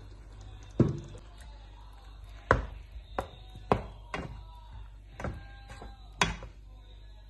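A spatula knocking against the sides of a non-stick kadai while stirring watery curry gravy: about eight sharp, irregular knocks, some with a short ring from the pan.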